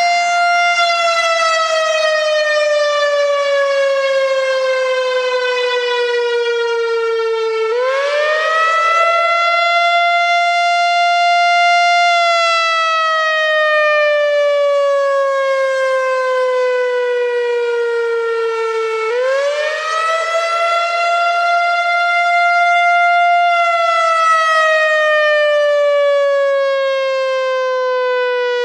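Older analog Whelen WPS-4004 electronic warning siren sounding its wail signal. Its pitch rises quickly, holds high for about four seconds, then slides slowly down for about seven seconds, and the cycle runs twice.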